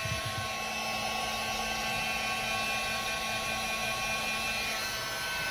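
Heat gun running steadily, blowing hot air to melt and smooth a paraffin wax lantern.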